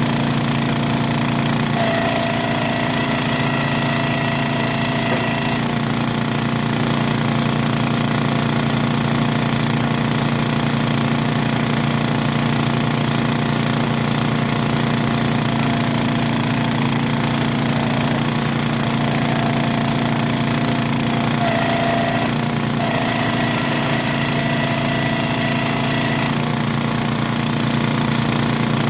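An engine running steadily at an even speed, with a faint higher tone that comes in for a few seconds twice.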